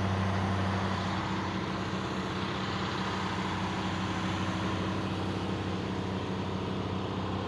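A large engine running steadily at an even speed, a low, constant hum with no change in pitch.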